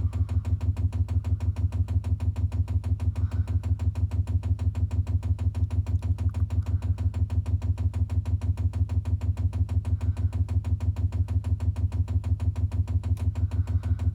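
Chinese diesel heater's fuel dosing pump clicking in priming mode: a fast, perfectly even train of low knocks, each stroke pushing kerosene up the fuel line toward the heater.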